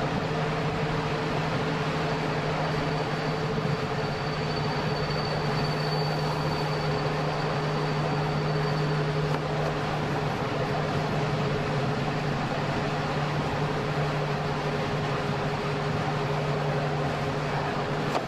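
Electric train on the Flåm Line running steadily along the rails: continuous rolling noise with a steady low hum. A faint high whine rises out of it about four seconds in and fades after about five seconds.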